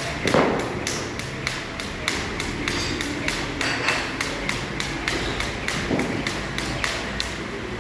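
Rapid, even tapping, about four to five taps a second, with one louder thud about half a second in.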